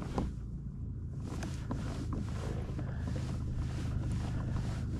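A pedal-drive kayak under way on calm water: wind rumbling on the microphone over the sound of the hull moving through the water, with faint regular ticks.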